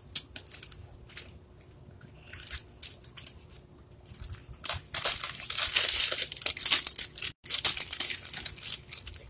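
Thin plastic die packaging crinkling and crackling in the hands as a metal cutting die is pressed back onto its sticky plastic sheet. Scattered crackles at first, then steady crackling from about halfway through.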